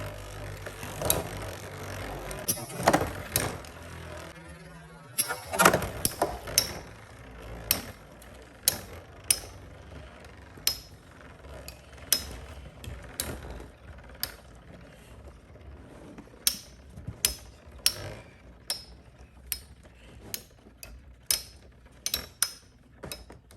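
Metal Fight Beyblade tops, Storm Pegasus and Lightning L-Drago, spinning and clashing in a stadium. A steady rattle for the first few seconds gives way to a run of sharp separate clicks, one or two a second, that grow fainter toward the end as the tops collide.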